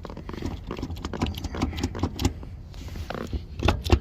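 Toyota forklift driving, with irregular clicking and knocking rattles over a low rumble, which the mechanic suspects comes from shot wheel bearings.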